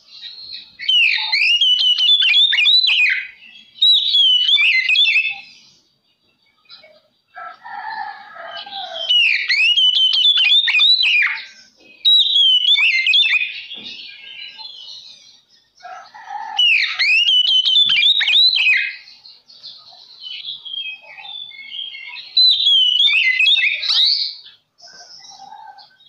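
Oriental magpie-robin (kacer) in full song: loud, rapid, varied whistled phrases in bursts of a few seconds each with short pauses between. It is a provocation song (pancingan) meant to set other magpie-robins singing.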